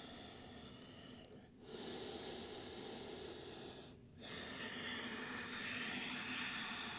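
A person's slow, deep breathing, heard as soft airy breaths: one long breath beginning about one and a half seconds in, then another just after four seconds.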